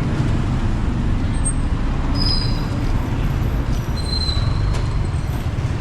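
Road traffic going by: a steady low rumble with no single vehicle standing out.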